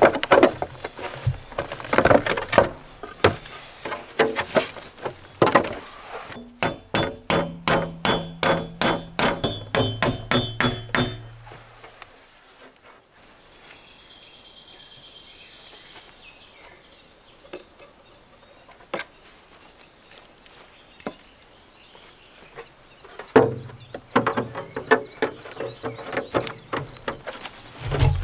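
Hammering on a log cabin's wooden window frame. Irregular knocks and handling come first, then a steady run of about three hammer blows a second. After a quiet stretch the knocking starts again near the end.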